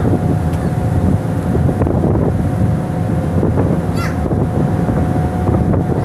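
Ship's engine running steadily under way in rough water, with wind buffeting the microphone and the wash of waves along the hull.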